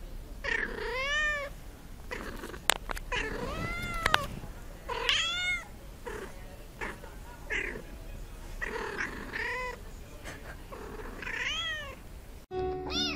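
Domestic cat meowing over and over, about seven calls, some drawn out with the pitch rising and falling. Two sharp clicks come in the middle.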